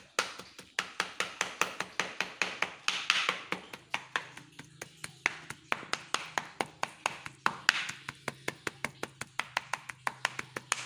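Broad-bladed kitchen knife mincing raw chicken breast on a cutting board, a quick steady run of chopping knocks about five a second.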